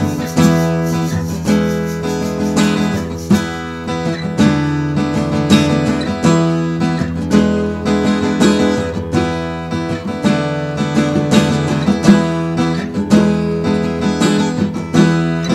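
Background music: an acoustic guitar strumming and picking a steady rhythm.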